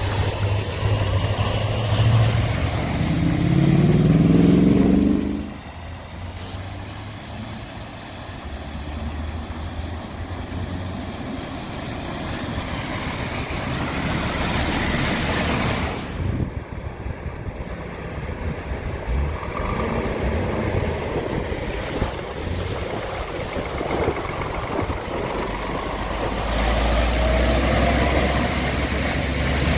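Trucks and lorries driving through deep flood water, their diesel engines running under the rush and splash of water pushed aside by the wheels. In the first few seconds an engine revs up, rising in pitch. Near the end a lorry's engine gives a strong low rumble.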